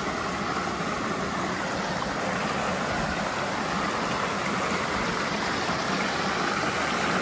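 Rushing stream, a steady loud rush of flowing water.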